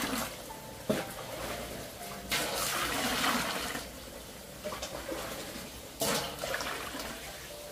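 Water being poured out in three separate splashing pours, each lasting about a second, with a sharp knock about a second in.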